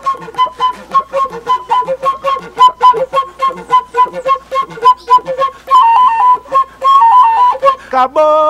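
Caboclinho-style music: a flute plays a quick repeated figure that hops between a high and a low note over fast, steady percussive clicks. About six seconds in it turns to a wavering melody, and a man's voice starts singing near the end.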